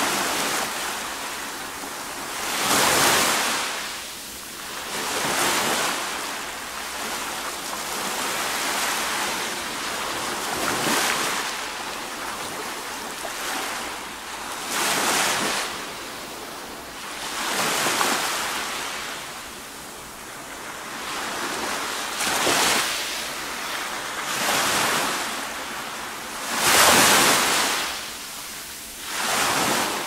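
Small sea waves breaking and washing up a fine pebble beach, swelling and fading every few seconds over a steady hiss of surf.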